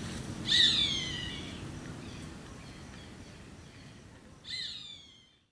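A bird calling twice: a loud cry that slides down in pitch, lasting about a second, near the start, and a fainter, similar cry near the end.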